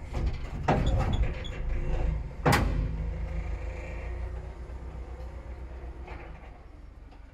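An engine running steadily at low revs, with metal knocks and clatter in the first three seconds, the sharpest about two and a half seconds in.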